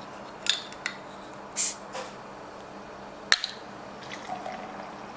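A glass bottle of Sapporo Premium non-alcoholic beer and a glass being handled as the drink is opened and readied: a few light clinks and taps, a short fizzing hiss about a second and a half in, and a sharp click a little after three seconds, with some liquid sounds.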